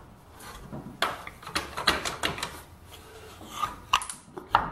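Hand handling a thin steel plate and a wooden block against a cast-iron lathe leg: irregular small knocks, clicks and scrapes, with a sharper click near the end.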